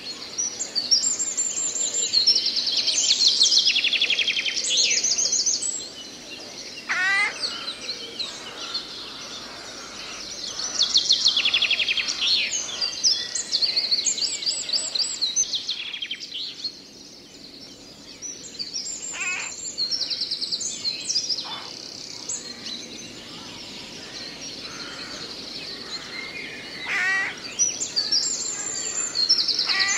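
Several songbirds singing in a forest: bursts of fast, high-pitched trilled phrases every few seconds, with a few lower sliding calls in between, over a faint steady background hiss.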